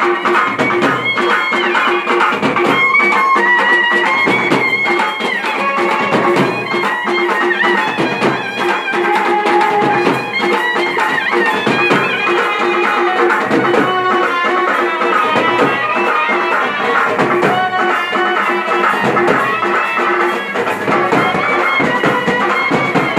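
Live folk procession music: a reed wind instrument plays a winding melody over a held drone note, with drums beating a dense rhythm beneath it.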